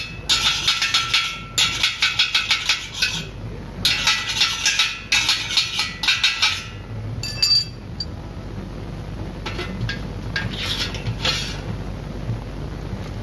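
Welding of eye-bolt studs onto a square steel tennis post: a rapid metallic crackle in bursts of a second or so, five of them one after another, then a few fainter, shorter ones later.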